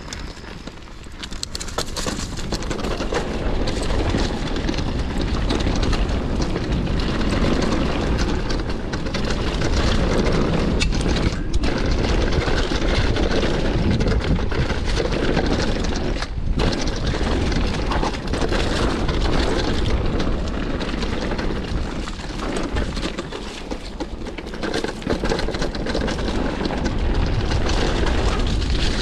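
Downhill mountain bike descending a dirt trail: wind buffeting the microphone over the crunch and rattle of tyres and bike on the ground, building up over the first few seconds, with two brief dips near the middle.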